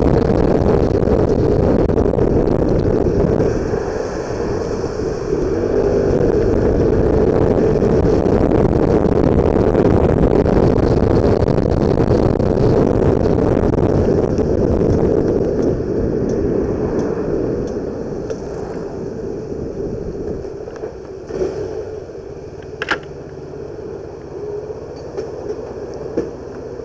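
Car driving noise, engine and road rumble, as picked up by a dashcam's built-in microphone inside the car, growing gradually quieter over the second half as the car slows. A few short sharp clicks sound near the end.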